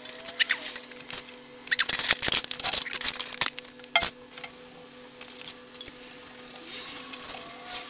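A quick run of sharp clicks and clinks of small metal hand tools, hex keys and a spanner, being gathered up off a plastic folding table, over a steady low electrical hum.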